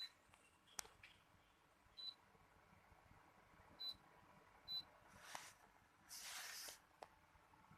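Faint short high beeps from the coin cell crimper's control panel as its buttons are pressed: four beeps, with a few light clicks. A short burst of hiss comes after the last beep.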